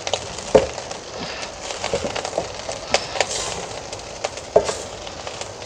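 Spatula stirring fried rice in a metal pan over high heat, with short scrapes and knocks against the pan about once a second over a steady sizzle.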